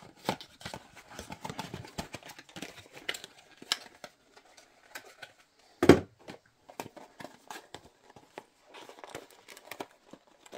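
Small cardboard boxes and their packaging being handled: crinkling and rustling with scattered light clicks. About six seconds in, a single loud knock as a box is set down on the wooden desk.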